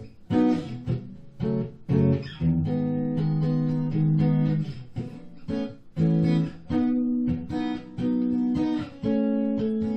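Acoustic guitar strumming chords in a steady rhythm, the chords ringing on between strokes: an instrumental break in a song.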